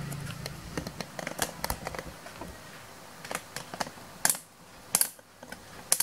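Irregular light clicks and taps from small parts being handled and fitted inside an opened 2011 MacBook Pro, with a few sharper clicks in the second half.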